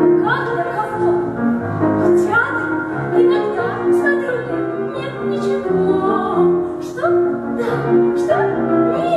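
A woman singing a waltz in a classical, operatic style with vibrato, over a piano accompaniment that repeats a bass note and chords in waltz time.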